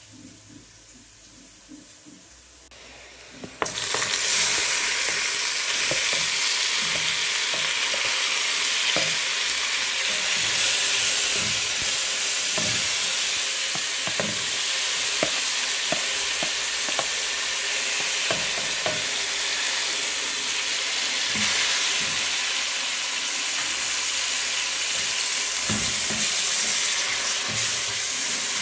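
Onions and chopped tomatoes frying in hot oil in a cooking pot, sizzling steadily, with a spatula scraping and tapping against the pot as they are stirred. The sizzle starts suddenly a few seconds in.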